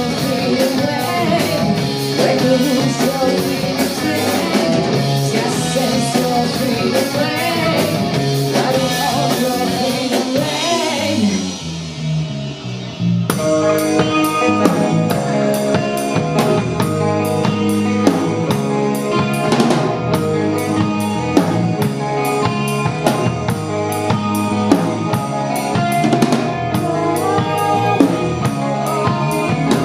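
Live rock band playing loud, with drum kit, electric guitar and bass guitar. About 12 seconds in the band thins out briefly, then comes back in all at once with a steady drum beat.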